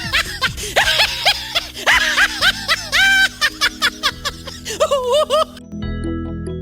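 Music with rapid, high-pitched squeaky chirps, several a second, like sped-up giggling chatter. The chirps stop near the end, leaving bell-like mallet notes.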